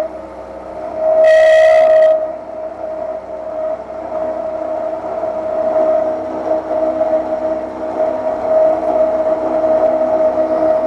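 Carbide end mill side-milling aluminum with a steady whining tone, rising to a louder, shrill squeal for about a second near the start: the cutter is chattering, which the machinist puts down to too high a feed.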